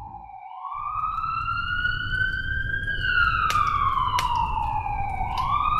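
Emergency-vehicle siren wailing: after a short gap about half a second in, its pitch rises slowly, falls slowly, and starts to rise again near the end, over a steady low rumble.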